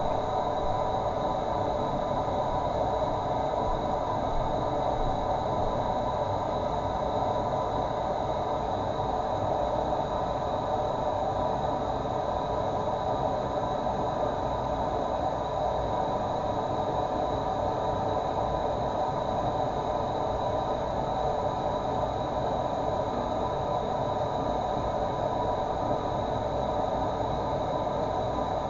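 Steady running water, an even unbroken rush.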